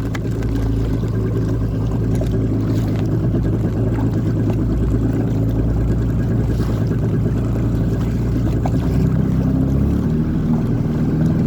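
Jet ski engine running steadily under way, its note shifting about ten seconds in as the throttle changes.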